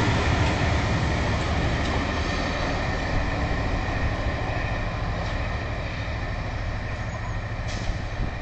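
Class 67 diesel locomotive's EMD two-stroke V12 engine working as the train pulls away, a steady low drone slowly fading.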